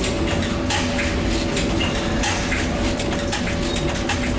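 Machinery in an automated electric-motor stator assembly cell running: a steady hum with a held tone, broken by irregular short hisses and clicks.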